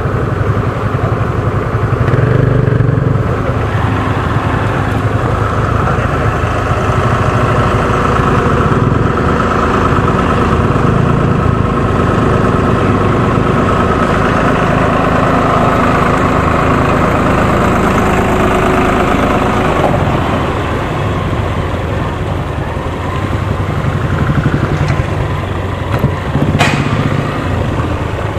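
Motorcycle engine running steadily at an even pitch, with a sharp click near the end.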